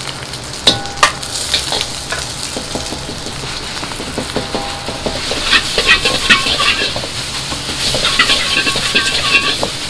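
Beaten egg sizzling in hot oil in a wok, with a metal ladle striking and scraping the pan in sharp ringing clanks. From about halfway the clanks come thicker and faster as the rice is stir-fried. A steady low hum runs underneath.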